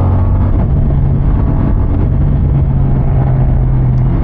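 CFMoto 450 CLC's 449 cc parallel-twin engine running under way at a steady cruise. Its note steps up slightly about half a second in, then holds.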